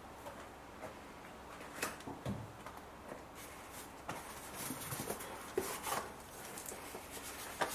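Scattered light clicks and brief scrapes of long-nose pliers working in the spark plug wells, gripping and pulling out the loosened spark plugs.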